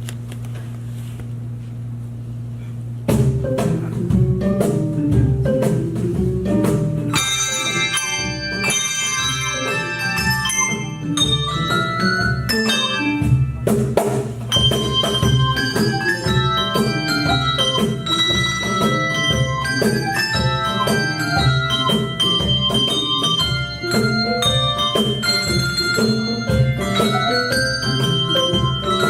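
Handbell ensemble playing. After a few seconds of steady low hum, low bells start a quick struck pattern, and from about seven seconds higher ringing bells join.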